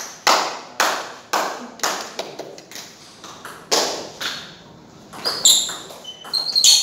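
Table tennis ball clicking back and forth between rackets and table in a rally, about two hits a second, with a short pause partway through. A couple of short high squeaks come near the end.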